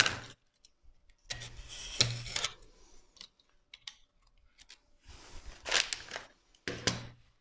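Self-adhesive vinyl film being pressed and rubbed by hand into the edge of a wooden step stool: a few rustling bursts a second or so long, with light clicks between them.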